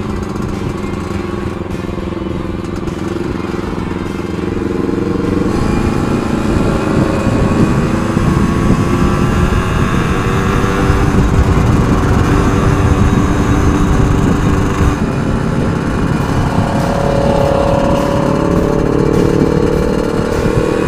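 Yamaha RX Special's two-stroke single-cylinder engine running under way, its pitch climbing as the bike speeds up about five seconds in and again near the end. Wind rumbles on the handlebar-mounted microphone.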